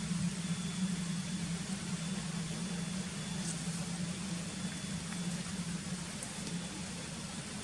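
CC 206 diesel-electric locomotive engine running steadily: a low, even hum that eases slightly toward the end.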